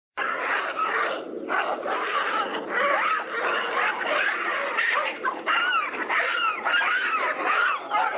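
Mandrill vocalising: a continuous, dense stream of harsh noisy calls mixed with many short squeaky cries that rise and fall in pitch.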